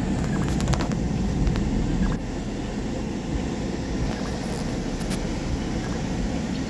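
Steady low rumble of a car driving, heard from inside the cabin, with a few light clicks; the noise drops a little about two seconds in.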